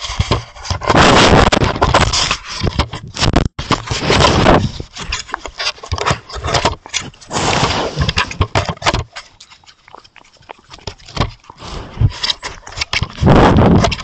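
A Roosevelt elk rubbing its fur and body against a trail camera, with loud scraping, rustling and knocking right on the camera housing. It eases off for a few seconds after about nine seconds in, then the loud rubbing starts again near the end.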